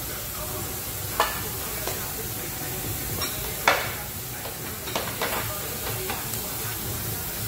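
Thin-sliced meat sizzling on a tabletop Korean barbecue grill, a steady hiss, with a few sharp clicks of metal tongs against the grill and tray.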